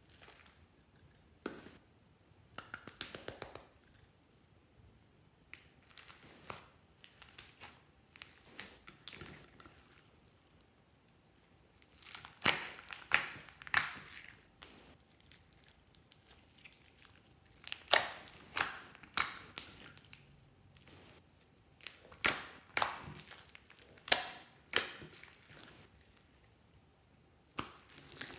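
Hands squeezing and kneading sticky slime full of foam beads, with wet crackling and popping in bursts of squeezes every second or so. It is sparse at first and gets louder and busier about halfway through.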